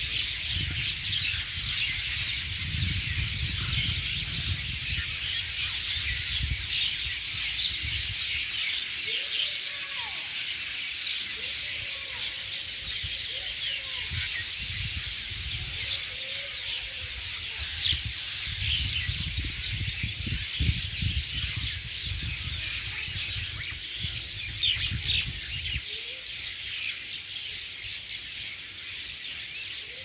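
A large flock of birds chirping in a dense, continuous high chorus of overlapping short calls, with a few lower sliding calls in the middle. An intermittent low rumble sits underneath.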